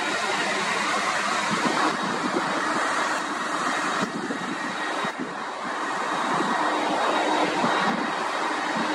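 Four jet engines of a UPS Boeing 747 freighter running at taxi power as it rolls along the taxiway: a steady jet rush with a faint high whine.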